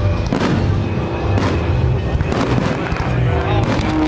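Fireworks bursting about once a second, four bangs, over music with sustained notes.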